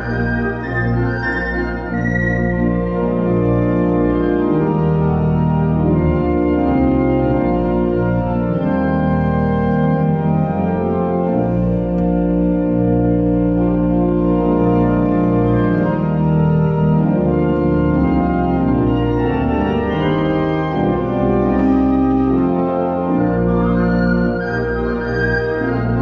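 Church pipe organ playing slow, sustained full chords over a deep pedal bass.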